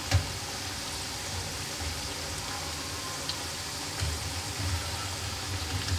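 Onion pakoras deep-frying in hot ghee, a steady sizzle and crackle of the bubbling fat. A single sharp tap just after the start, the metal skimmer against the steel pan.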